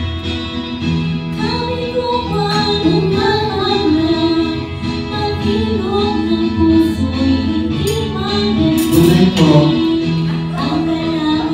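A woman singing a song into a microphone over an instrumental backing track, with held notes and sliding vocal lines.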